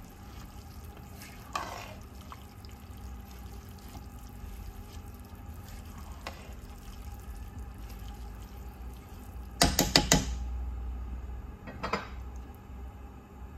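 A spatula stirring rice through jaggery syrup in a nonstick pan, making wet, liquid stirring sounds with a few light knocks. About ten seconds in comes a quick cluster of sharp knocks, the loudest sound.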